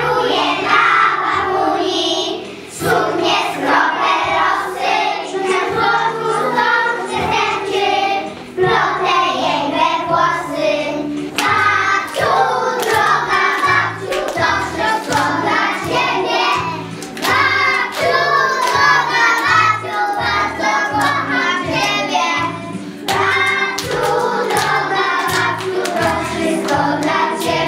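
A group of young children singing a song together over instrumental backing music with a steady, repeating bass line.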